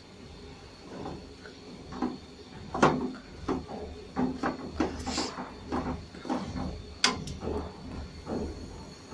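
Wooden spatula stirring a wet mix of greens and lentils in a metal cooking pot. It scrapes and knocks against the pot about once or twice a second, with the sharpest knocks about three seconds in and again about seven seconds in.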